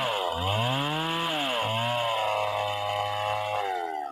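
Two-stroke Stihl chainsaw cutting into wood. Its engine pitch dips sharply twice as the chain bites and bogs down, recovering each time. It then runs steadily at high revs before dropping off at the very end.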